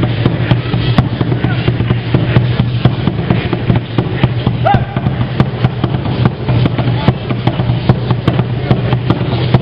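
Aztec dance percussion: a drum beating with the dense clatter of chachayote seed-shell rattles worn by the dancers, a fast, uneven run of sharp clacks over a steady low hum.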